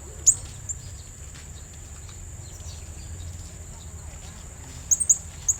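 Blue-crowned hanging parrot (serindit) giving sharp, high-pitched chirps: one strong one just after the start, a softer one shortly after, and a quick run of three or four near the end, over a steady high insect drone.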